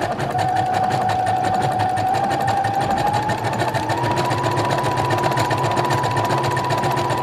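Brother CS5055PRW computerized sewing machine running continuously while it sews stitch pattern number 8, with the needle's rapid tapping throughout. Its motor whine steps up in pitch about halfway through.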